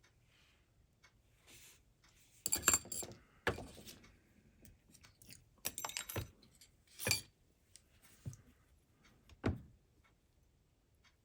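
Small metal parts clicking and clinking against each other and the bench in several short clatters, the loudest a few seconds in and again near the end, as a slot car chassis is handled and assembled.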